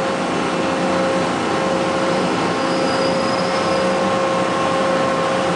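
Steady electrical hum and cooling-fan noise of a Miller Syncrowave 250 welding machine running, just switched on and not yet striking an arc.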